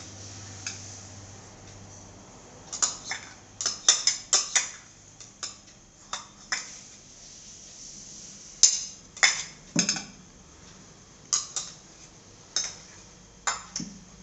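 A plastic spoon knocking and scraping against bowls as chopped fruit is stirred and small bowls are emptied and set down on the table: irregular sharp clinks, some in quick clusters, the loudest a little past the middle.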